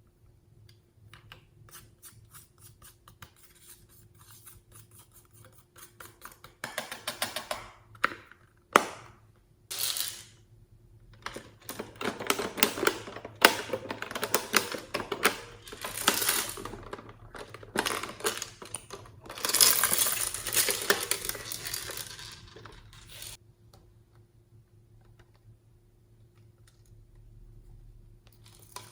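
Slime being mixed and squished, with sticky crackling, many small clicks and clatters. It is loudest from about six to twenty-three seconds in.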